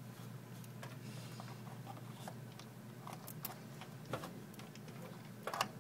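DDR2 memory sticks being handled and pressed into motherboard DIMM slots: scattered plastic clicks and rubbing. The loudest sharp clicks come near the end, as a slot's retaining latches snap shut, the sign that the stick is seated and secure.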